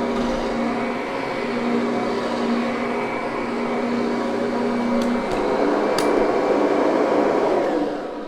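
Kirby upright vacuum running steadily with a motor whine over carpet, then switched off near the end, its motor winding down in pitch.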